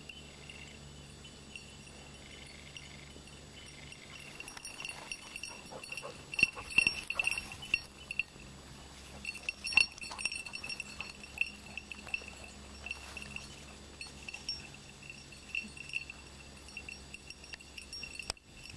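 Small bell on a working hunting dog's collar clinking irregularly as the dog moves through the brush, loudest and busiest in a run of sharp clinks a third of the way in.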